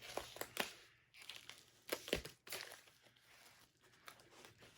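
Plastic packaging crinkling and rustling as it is handled, with scattered crackles and a knock about two seconds in.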